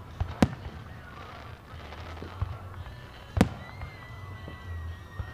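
Aerial fireworks shells bursting, with two loud sharp booms, one just under half a second in and one about three and a half seconds in, and fainter pops between them.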